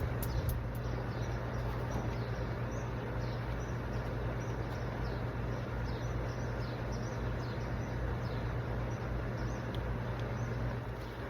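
A steady low hum with small birds chirping over it, short falling chirps coming every second or so.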